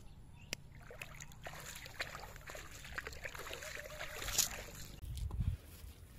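Water splashing and dripping as a wet cast net is hauled out of a river, with a louder splash about four seconds in and a low thud near the end.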